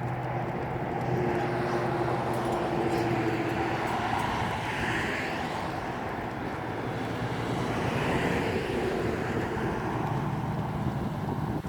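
Road traffic: the steady rush of passing cars, swelling about halfway through and again a few seconds later, with a low engine hum under it near the start and end.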